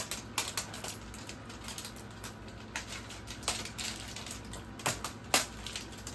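Plastic toy packaging crinkling and crackling as it is handled and opened, with irregular sharp clicks and a few louder snaps near the end.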